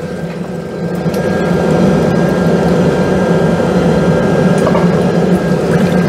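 Waterfall spray booth's recirculating water pump running, with water pouring down the glass back panel into the basin. The sound grows about a second in as the flow restarts, then holds steady with a faint whine over the splashing.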